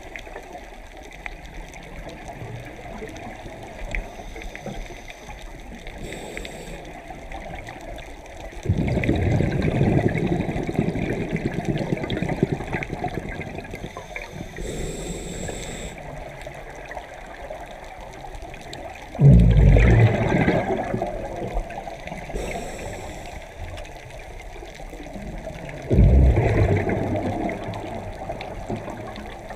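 Scuba regulator breathing underwater: three exhalations, each a loud rush of bubbles that starts suddenly and fades over a few seconds, with a low watery hiss between them.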